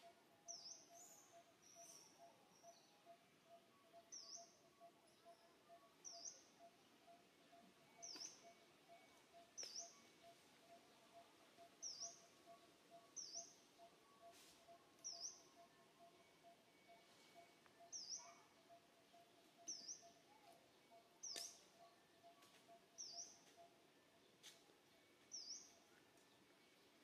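Faint, high-pitched bird chirps: one short call every second or two, repeated steadily, over a faint steady pulsing tone.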